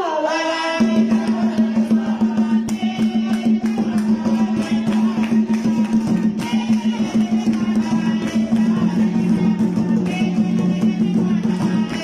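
Dance music with a fast, busy drum beat over a steady low bass note. Voices singing together at the very start give way to it within the first second.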